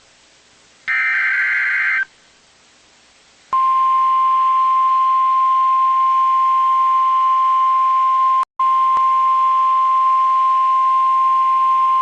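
The last of the SAME header's digital data bursts, about a second of harsh buzzing tones. After a short gap comes the NOAA Weather Radio 1050 Hz warning alarm tone, one steady high beep held for about eight seconds, with a split-second dropout partway through. Together they mark the start of a new alert message.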